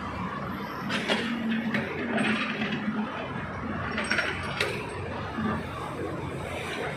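Backhoe loader digging a trench: its engine runs steadily under sharp metallic clinks, a cluster about a second in and two more around four seconds in.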